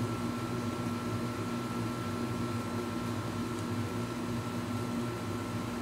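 Room air conditioner running steadily: an even hum with a faint high steady whine.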